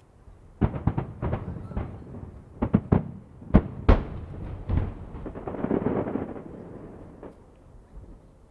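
Aerial firework shells bursting over the harbour in quick succession: about a dozen sharp bangs in the first five seconds, followed by a longer swell of noise that dies away.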